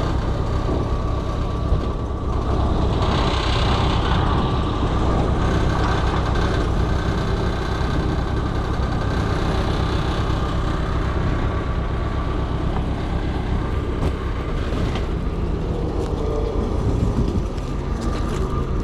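Forklift engine running steadily as it handles a load.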